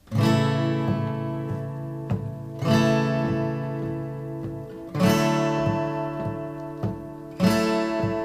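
Acoustic guitar strumming chords: a strong strum about every two and a half seconds, each left ringing, with lighter strokes in between.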